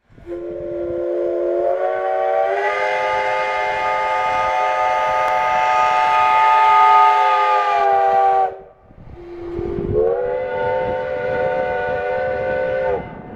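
Steam locomotive whistle sounding a chord of several notes. The first long blast, about eight seconds, fills out as more notes join during its first few seconds. After a short break comes a second blast of about four seconds.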